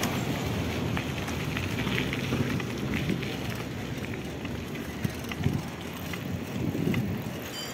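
Wind rushing over the microphone, with the rumble of mountain-bike tyres rolling on a gritty road surface and a few light clicks.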